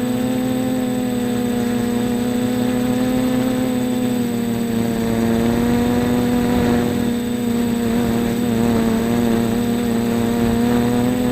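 3D-printed quadcopter's electric motors and propellers running in flight: a steady pitched hum whose pitch wavers slightly from about halfway through.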